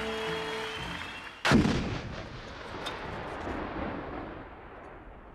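Music fades out, then about a second and a half in comes one loud blast of artillery fire with a long fading rumble.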